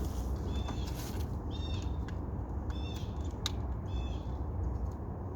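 A bird calling: a short high call repeated four times, about a second apart, over a steady low rumble. A single sharp click comes about three and a half seconds in.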